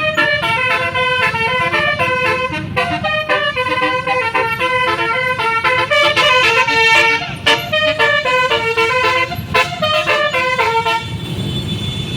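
A tour bus's telolet horn, a set of electrically switched air-horn trumpets, playing a fast melody of short stepped notes. The tune stops about 11 seconds in.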